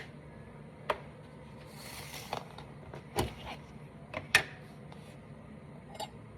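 Objects being handled on a kitchen counter: a series of sharp clicks and knocks, the loudest a bit over four seconds in, with a short hiss about two seconds in and a brief rattle near the end.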